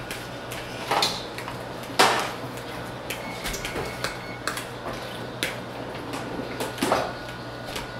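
Scattered clinks and knocks of mixing bowls and baking ingredients being handled on a kitchen counter, with a few louder knocks, the loudest about two seconds in.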